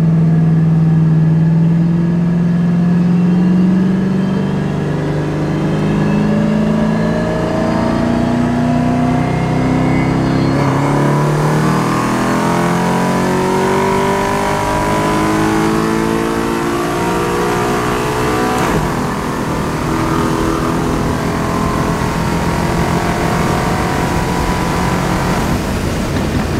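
Twin-turbo Ford Mustang's Coyote 5.0 V8 heard from inside the cabin during a full-throttle pull from 100 to 200 km/h. The engine holds a steady note for a few seconds, then climbs in pitch, with a break at an upshift about ten seconds in and again about eighteen seconds in.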